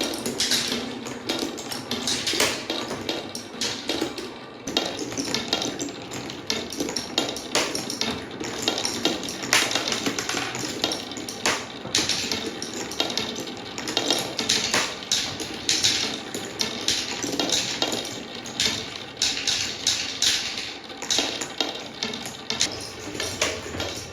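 Many marbles rolling and clacking down wooden Quadrilla spiral and straight slopes: a dense, continuous clatter of small knocks that rises and falls in waves.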